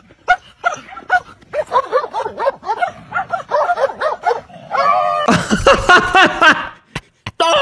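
A dog yipping and barking in a quick run of short, high calls, several a second. Near the end, men laugh loudly.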